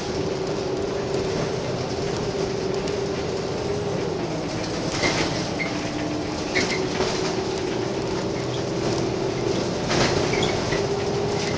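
Gillig Phantom transit bus under way, heard from the driver's cab: engine and drivetrain running with a steady whine that drops in pitch a little before halfway and rises again a couple of seconds later. The body rattles and clatters several times.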